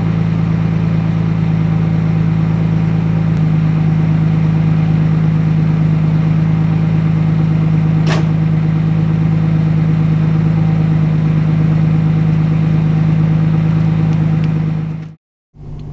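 Nissan Stagea's turbocharged straight-six idling steadily just after a cold start, having sat unused for a long time. It cuts off abruptly near the end.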